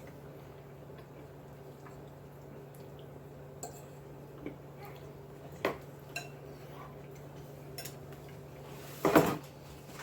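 Light clicks and taps of tableware being handled, with a louder short clatter about nine seconds in, over a steady low hum.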